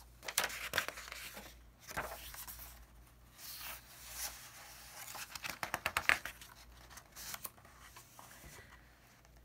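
Paper pages of a hardcover picture book being turned by hand, rustling and flapping in several short bursts, loudest about six seconds in.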